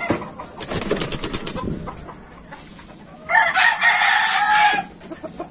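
A caged gamecock rooster crows once, about three seconds in, a call of about a second and a half that drops at the end. Before it there are light clicks and rustling.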